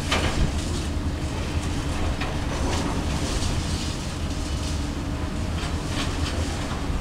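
Diesel excavators working on a concrete building: a steady low engine rumble with scattered cracks and clatter of concrete being broken and falling as debris.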